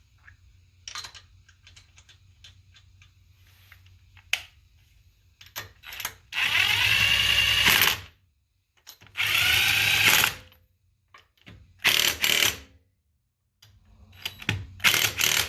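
DeWalt DCF889 20-volt cordless 1/2-inch impact wrench running in four bursts, spinning lug nuts back onto a car wheel and snugging them down. The first burst lasts about two seconds, the later ones are shorter, and light clicks of the nuts and socket being handled come before.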